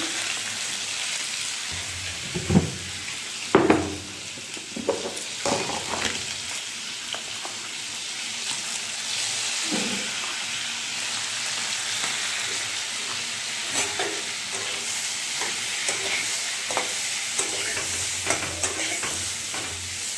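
Peeled hard-boiled eggs frying in hot oil in an iron kadai, a steady sizzle throughout. Several sharp knocks against the pan break in, the loudest two about two and a half and three and a half seconds in.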